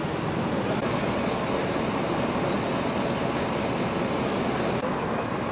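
Steady traffic noise of a busy city street: a constant, even din of vehicles with no single sound standing out.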